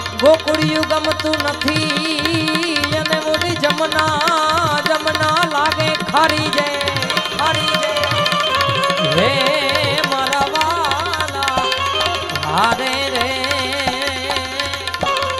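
Two pairs of tabla playing a steady rhythm together in Gujarati devotional bhajan music, under a melody line that bends and trills.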